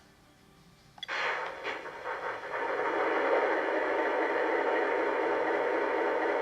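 Lionel Alco S4 switcher's electronic diesel engine sound starting up about a second in, uneven at first, then running steadily through the model's small onboard speaker.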